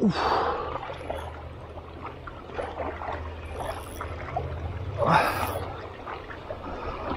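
River current running steadily with a low rumble, and a man's hard exhalations: a huff right at the start and another sharp breath about five seconds in, from the effort of playing a fish.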